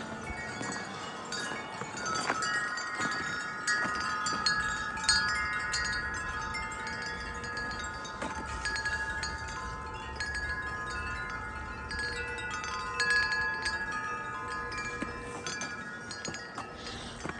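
Wind chimes ringing in gusty wind, their tubes struck again and again so that several tones overlap and ring on, with a low rumble of wind underneath.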